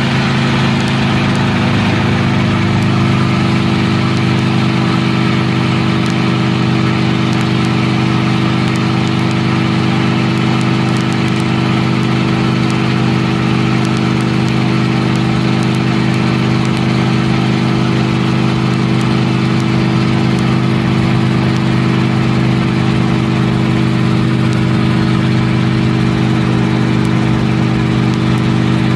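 Enstrom 280 helicopter's four-cylinder Lycoming piston engine and rotors heard from inside the cabin in flight, a loud steady drone that holds one even pitch throughout.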